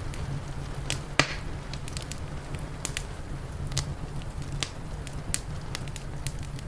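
Wood fire crackling, with irregular sharp snaps and pops and one louder pop about a second in, over a steady low rumble.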